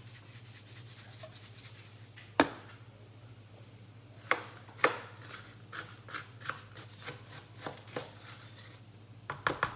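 A metal utensil taps and scrapes against a frying pan while vegetables are stirred: one sharp tap about two seconds in, then a run of irregular clicks and knocks. A steady low hum runs underneath.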